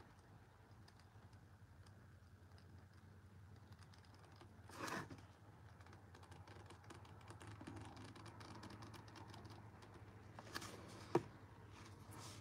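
Faint handling sounds of painting with a brush: scattered small clicks and taps over a steady low hum, a brief rustle about five seconds in, and one sharp click near the end, when the brush goes to the plastic paint tray.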